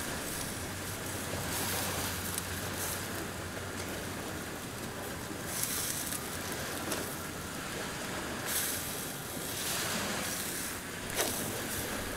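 Steady wind noise on the microphone with a surf-like hiss that swells briefly a few times, and a small click near the end.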